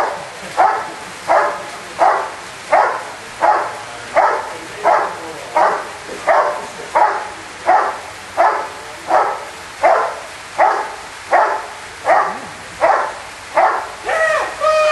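Rottweiler barking steadily at the helper in the blind, the 'hold and bark' of a Schutzhund protection routine. The barks come in an even rhythm, about three every two seconds, and a short held call breaks in near the end.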